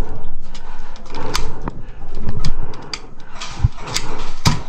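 Sharp clicks and knocks of an indoor airsoft game, airsoft shots and BBs striking plywood walls, coming irregularly with the strongest couple near the end.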